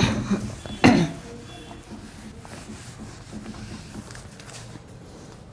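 Whiteboard duster wiping marker writing off a whiteboard: two loud rubbing strokes, one at the start and one about a second in, with a brief squeak, then quieter rubbing.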